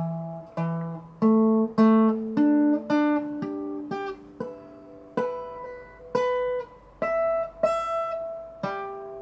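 Egmond archtop guitar being plucked one note at a time, about two notes a second, each note ringing and dying away, many played twice at the same pitch: the guitar's intonation being checked string by string.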